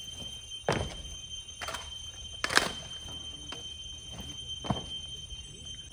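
A handful of separate knocks about a second apart, the loudest about two and a half seconds in, over a steady faint high-pitched whine.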